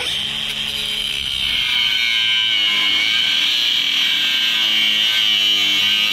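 Angle grinder with a cutoff wheel cutting into the steel wastegate bushing on an N54 turbocharger housing. It starts abruptly and settles into a steady high whine as the wheel bites into the metal.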